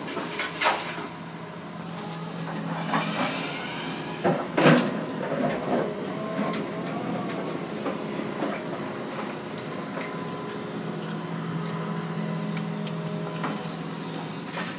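Hydraulic excavator's diesel engine running steadily, heard from inside a cab, with a whine that rises and falls about three seconds in. A few sharp metallic clunks cut through it, the loudest pair a little before five seconds in.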